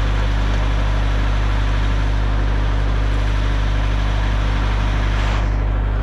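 UHI compact tractor's engine running steadily at idle, with the backhoe's PTO-driven hydraulic pump turning; a hiss on top of the engine drops away about five seconds in.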